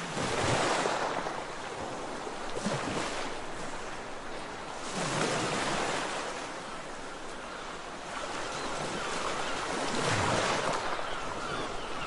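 Sea waves breaking and washing up a sandy beach, rising and falling in surges every few seconds.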